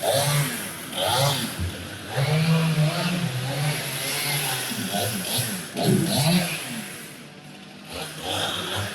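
Engine revving up and dropping back again and again in short bursts, loud, with a brief lull a little before the end; work noise that drowns out talk.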